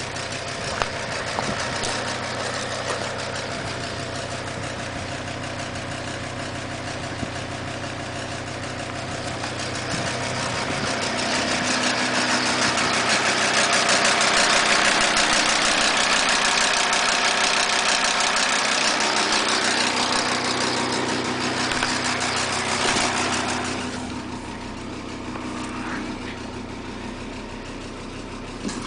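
Audi A6 2.5 TDI V6 turbo-diesel engine running with a rapid ticking from the top end; it gets louder about ten seconds in, stays up, and drops back about twenty-four seconds in. The tick comes from a sheared key on the crankshaft timing-belt sprocket: the cam has slipped 6–8 degrees advanced and the inlet valves are touching the pistons.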